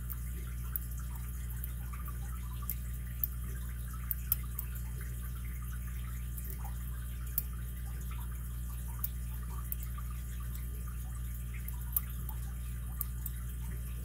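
Faint, irregular metallic clicks and ticks of a hook pick lifting the spring-loaded pin tumblers of a Hercules 800 brass padlock while the tension is varied, with a few sharper clicks. Under them runs a steady low hum.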